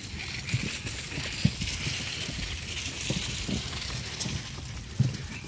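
Soft, irregular thuds of walking, hooves and feet on grassy ground, over a steady high hiss.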